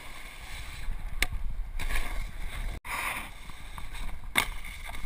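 Snowboard sliding and carving over packed snow, with wind buffeting the camera's microphone as a low rumble. A few short sharp scrapes stand out, and the sound drops out for an instant about three seconds in.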